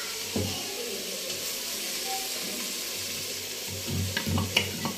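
Steel spoon scraping pounded spice paste out of a wooden mortar, over a steady hiss. Near the end come several sharp scrapes and taps of the spoon against the wood.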